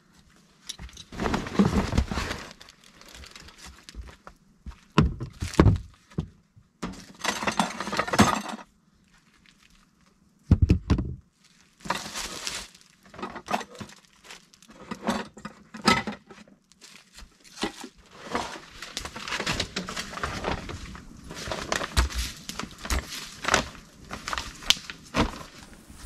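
Irregular knocks, clinks and rustling from objects being handled, with a short lull a little before the middle.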